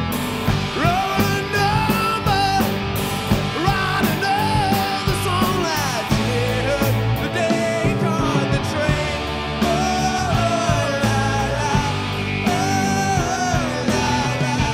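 Live rock band playing electric guitars, bass and drums, with a male lead singer singing over them.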